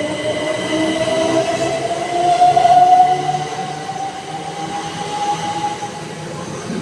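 Southern Class 377 Electrostar electric multiple unit pulling away and accelerating, its traction motors giving a whine that rises steadily in pitch over the sound of the wheels on the rails. It is loudest about three seconds in, then fades as the train draws away.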